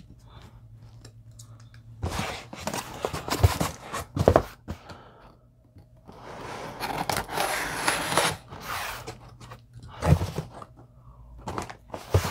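Cardboard shipping box being opened: packing tape cut and pulled with scissors, with scraping and ripping of tape and cardboard and a longer ripping stretch in the middle. Dull thumps near the end as the box is lifted and handled.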